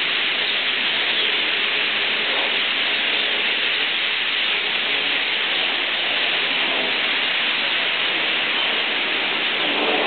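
Steady chatter of a huge flock of European starlings, thousands of calls blending into one continuous hiss.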